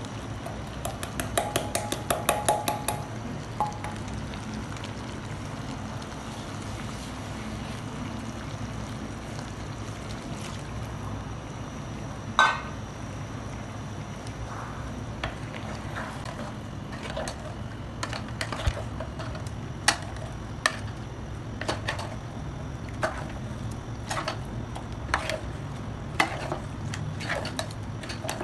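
Steel bowl tapped rapidly against the rim of an aluminium cooking pot to shake out spice powder, then one loud metal clang. After that a metal ladle stirs chicken curry in the aluminium pot, knocking and scraping against its sides, over a steady low background noise.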